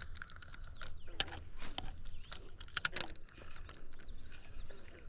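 Fishing reel cranked to bring in line: a run of irregular mechanical clicks from the reel's gears. Birds chirp faintly near the end.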